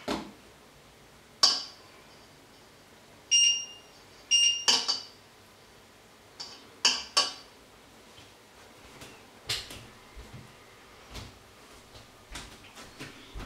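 A metal spoon clinks and scrapes against a stainless steel mixing bowl as pasta is stirred, in sharp, ringing knocks spaced a second or two apart. Around the fourth second two short electronic beeps sound from a kitchen appliance, about a second apart.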